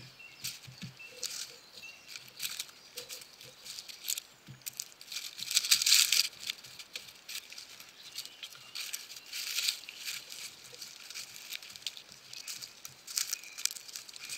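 Short digging shovel scraping and cutting into soil under a layer of dry leaves, in irregular rasping strokes with leaves crackling; the loudest strokes come about six and nine and a half seconds in.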